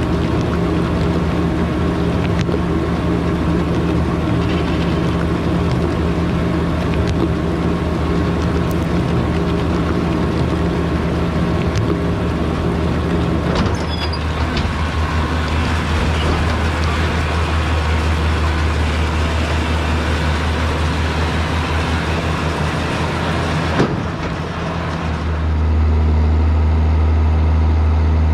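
Diesel tractor engine running steadily under load while pulling a round baler, with the machinery noise of the work over it. Near the end the sound dips briefly, then settles into a louder, deeper steady hum.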